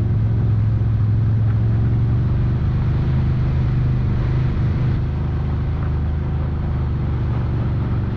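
Honda side-by-side UTV engine running steadily, heard from on board, a low, even drone with no revving that eases off slightly about five seconds in.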